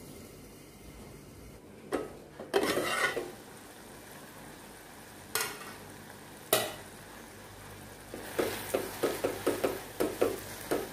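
Silicone spatula stirring tomato masala in an aluminium pot, scraping in quick repeated strokes over the last few seconds, while the tomatoes fry softly in oil. A few separate short metal clatters come before the stirring.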